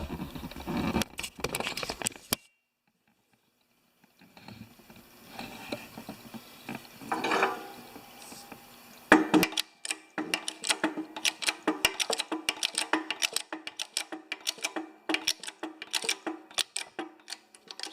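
Repeated metallic clicking, about four clicks a second in its steadiest stretch, from the homemade bearing press being worked to push a new bearing onto a mower deck spindle shaft. The clicking breaks off briefly a couple of seconds in.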